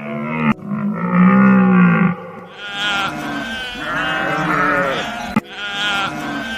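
Animal calls joined in short clips: two long, low pitched calls, then bleating from about two and a half seconds in, with an abrupt cut between clips near the end.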